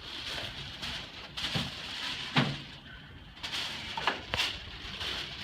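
A person turning over onto a padded chiropractic treatment table: rustling and handling with a few short creaks and knocks, the loudest about two and a half seconds in.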